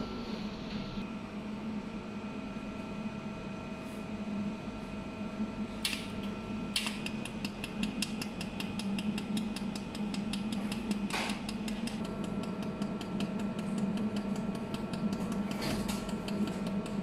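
Desktop laser spot welder running with a steady hum from its cooling, with a few sharp clicks and, from about a third of the way in, a long run of quick, fine ticks.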